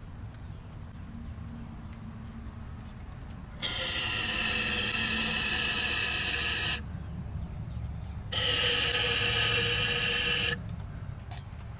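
Aerosol can of carburetor cleaner spraying in two long bursts, the first about three seconds long and the second about two, with a steady low hum underneath.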